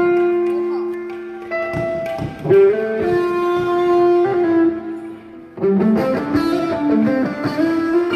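Guitar playing a slow melody of long sustained notes, with a short lull about five seconds in before the playing resumes.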